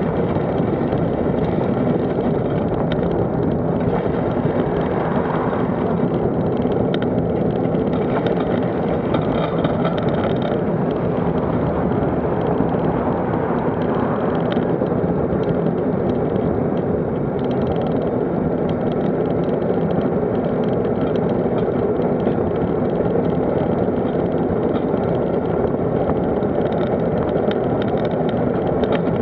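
Steady rumble of a vehicle moving along a road, with road and wind noise on the microphone, and other cars in traffic alongside.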